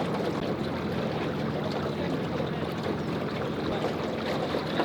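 Motorboat running steadily on a river, with water rushing past the hull.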